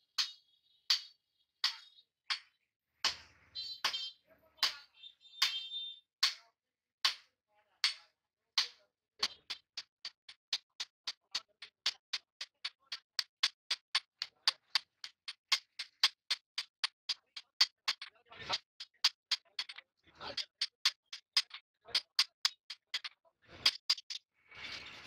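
Hand hammer striking a red-hot steel chopper blade on an anvil: sharp ringing blows, spaced out at first, then a fast even run of about four strikes a second through the middle, slowing and spacing out again near the end.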